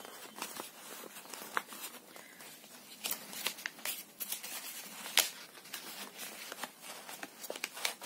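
Paper rustling and scraping as a journal card is slid into a paper envelope pocket, with scattered light crinkles and taps of paper being handled.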